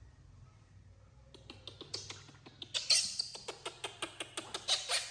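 A rapid run of short, sharp squeaky sounds, about five a second, from a small animal. They start about a second in and grow louder midway.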